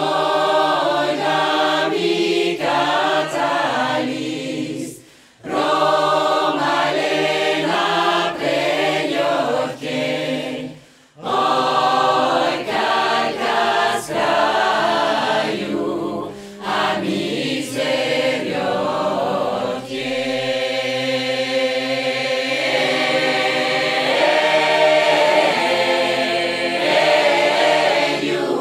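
Mixed-voice a cappella choir of women and men singing a Russian Romani song in harmony, in phrases with short breaks between them. In the second half the voices hold longer, steady chords.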